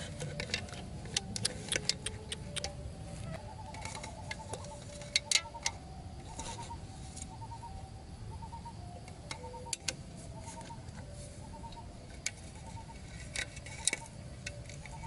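Small clicks and taps of an aluminium drink can and bamboo stakes being handled and fitted together as a trap is set. From about four seconds in, a short call repeats in the background roughly twice a second.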